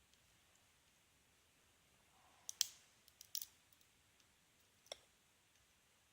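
Sharp metallic clicks of a lock pick and tension wrench working in the tight keyway of a Yale Y221/52 padlock during single pin picking. After a couple of quiet seconds come a few clicks about two and a half seconds in, a pair near three and a half seconds, and one more near five seconds.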